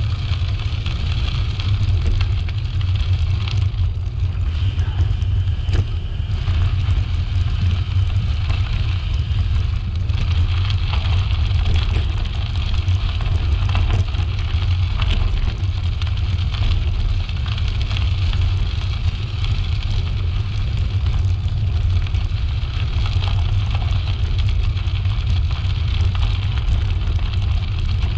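Steady rumble of air rushing over the microphone while riding a bicycle, with a fainter higher hiss and no change in level.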